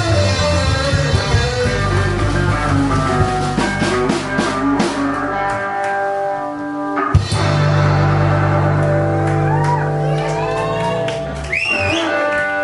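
Live rockabilly band playing, with guitar, drum kit and singing. A sharp hit lands about seven seconds in, and notes are held out after it.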